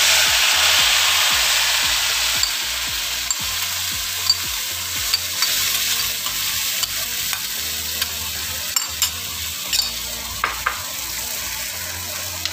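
Ground chili-tomato spice paste sizzling as it is spooned into hot oil in a frying pan, loudest at first and slowly dying down, with a metal spoon clinking against the glass bowl and pan now and then.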